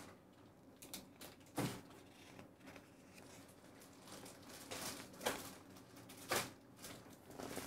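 Light handling sounds at a desk: a few short clicks and knocks, about five, over faint paper-like rustling.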